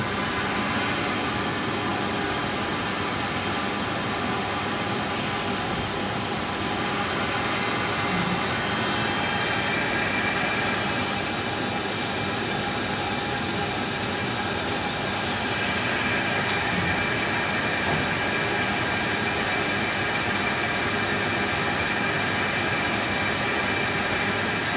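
LPKF ProtoMat S62 circuit-board milling machine running steadily: a rush of air with a whine over it, which builds just as it begins. A higher steady tone joins about ten seconds in.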